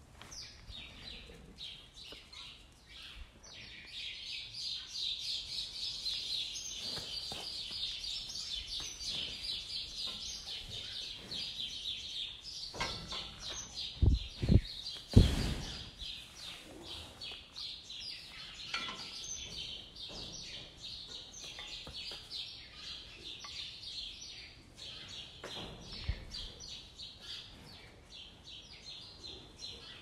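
A dense chorus of small birds chirping and twittering continuously. About halfway through come three heavy low thumps in quick succession, the loudest sounds here, with one more softer thump later.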